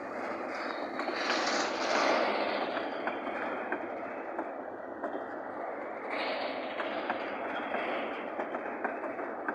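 Freight train rolling past: a steady rumble of wheels and wagons with scattered clicks from the rails, swelling twice. No horn is sounding.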